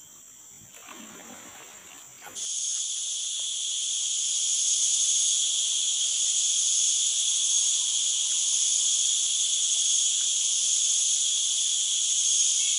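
Steady, high-pitched drone of forest insects, starting abruptly about two and a half seconds in after a quieter opening.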